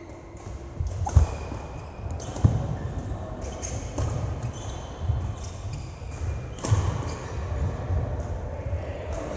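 Irregular thuds of a ball being struck or bounced during a game, the loudest about a second in, two and a half seconds in and near seven seconds in, over a general background of play.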